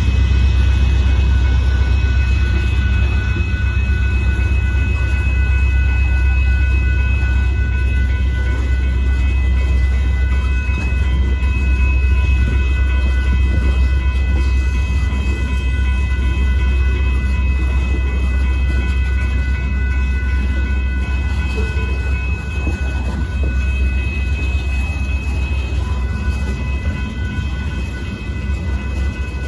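Loaded gravel hopper cars of a Union Pacific freight train rolling past: a steady low rumble of wheels on rail, with a steady high-pitched tone over it.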